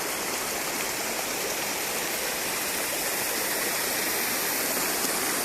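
Steady, even rush of running water, with no breaks or single impacts.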